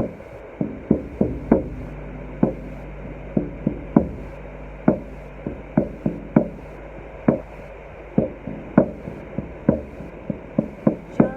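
Hand-struck percussion knocking in an uneven rhythm, about two or three strikes a second, each ringing briefly, over a faint low drone.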